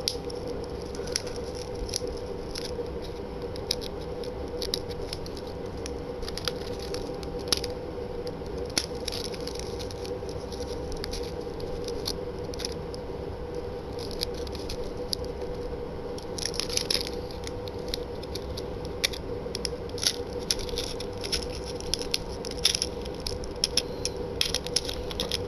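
Unboxing handling noise: scattered clicks, rattles and scrapes of packaging and parts being handled, with a denser cluster about two-thirds of the way through, over a steady hum.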